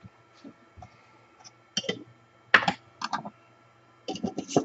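Small metal parts and a glass jar handled on a workbench: irregular clicks and clinks in quick clusters, loudest about two and a half seconds in and near the end.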